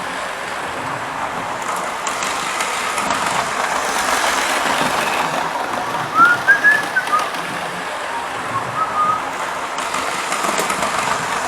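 OO-gauge model HST running steadily around a model railway layout, its motor and wheels whirring on the track. About six seconds in comes a quick run of short high chirps, with two more a few seconds later.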